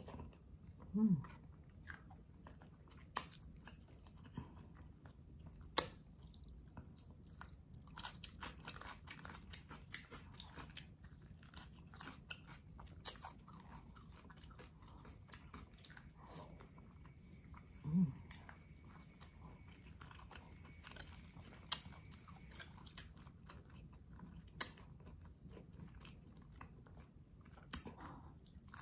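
Close-up chewing of soft boiled beef and leafy greens from bulalo soup, with many short wet mouth clicks and lip smacks, eaten by hand. Two short hums of enjoyment, about a second in and about two-thirds of the way through.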